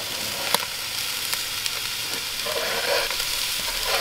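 Chopped onions sizzling as they go into a hot cast-iron Dutch oven with meat drippings, a steady hiss, with a few sharp taps and a short scrape of a metal scraper pushing them off a plastic cutting board.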